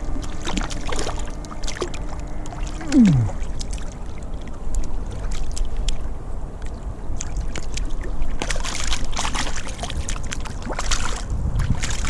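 Steady rush of river water with wind buffeting the microphone, overlaid by scattered clicks and rustles of handling. About three seconds in, a short tone slides down in pitch.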